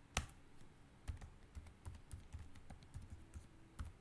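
Typing on a computer keyboard: one sharp keystroke just after the start, then a run of lighter key clicks, about three a second, and another sharp keystroke at the end.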